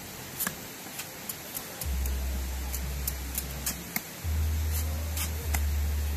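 Machete blade cutting and trimming young bamboo shoots: about a dozen short, sharp chops and clicks at an uneven pace. A low steady drone comes in about two seconds in and runs under the cuts.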